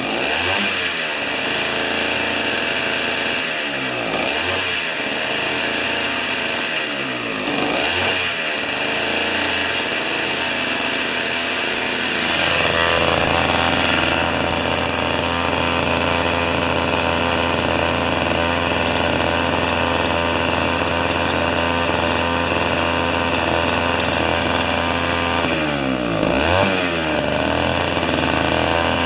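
Tecumseh two-stroke snow-thrower engine running after a restart on old, oil-rich premix. Its speed rises and falls several times in the first seconds, then holds steady at high speed, and dips and recovers once more near the end.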